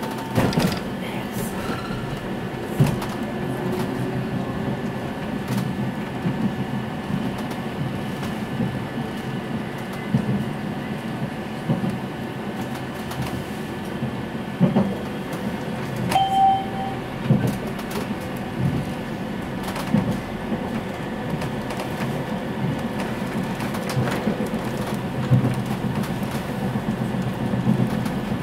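Tram running along its track, heard from inside the passenger car: a steady rumble with irregular knocks from the wheels over the rails, and a brief high tone about halfway through.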